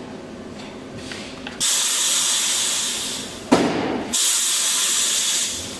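Egg sealing machine's air hissing in two long bursts. A sharp knock comes between them, about three and a half seconds in.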